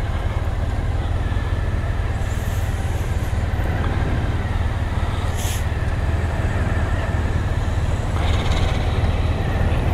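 Motorcycle running with a steady low rumble and noise, heard from the bike. A brief click about five and a half seconds in.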